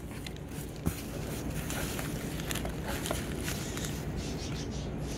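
Rustling and crinkling of a mesh reptile shipping bag being handled and squeezed by the fingers, with a steady low hum underneath and a single sharp click about a second in.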